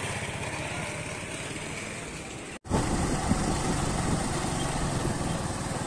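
A vehicle engine running steadily on the move, with rapid low pulsing. It drops out for a moment about two and a half seconds in and comes back louder.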